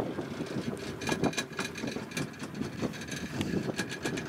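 Wind buffeting the microphone aboard a small boat, over the boat's running motor; a faint steady whine joins about a second in.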